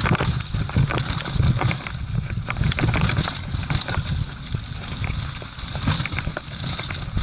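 Mountain bike riding fast down a dry dirt trail: a steady rumble of wind and trail on the microphone, tyres crunching over dirt and dry leaves, and frequent rattling clicks and knocks from the bike over bumps.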